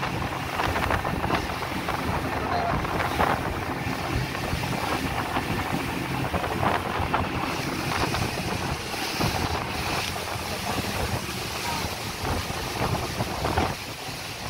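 Speedboat under way at speed: a steady engine drone mixed with the rush of water and spray from the hull and wake, and wind buffeting the microphone.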